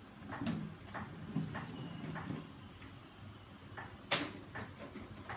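Plastic toy garbage trucks being handled: a few light clicks and knocks, then one louder sharp plastic knock about four seconds in.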